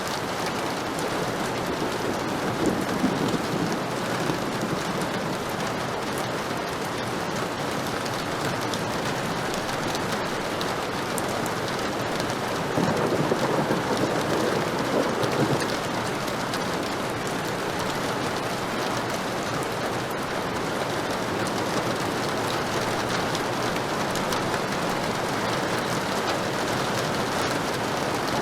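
Heavy rain falling steadily, with low rolls of thunder swelling a few seconds in and again, longer, about halfway through.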